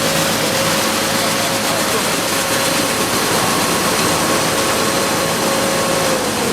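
Corn milling plant machinery running, a loud, steady mechanical noise with a constant whine that begins to drop in pitch at the very end.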